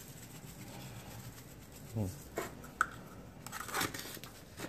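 Spice shaker being shaken over raw chicken legs in a bowl: a faint, soft sprinkling. It is followed by a few light clicks and knocks.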